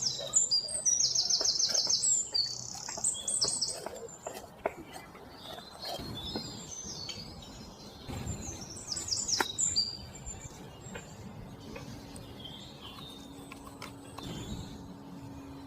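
Songbirds singing: rapid high trills and chirps, loudest in the first few seconds and again about nine seconds in, with scattered small clicks and a faint steady hum coming in near the end.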